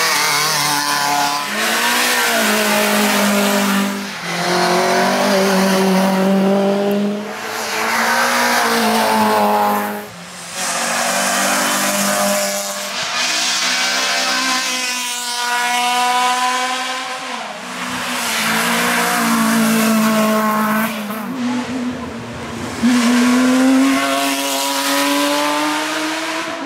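Hillclimb race car's engine at full throttle up the course, its pitch climbing through each gear and breaking off at the shifts and lifts every few seconds.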